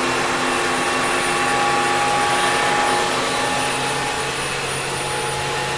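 Mil Mi-8 helicopter's turbine engines running, heard from inside the cockpit: a steady rush with several high whining tones over it, easing slightly about three seconds in.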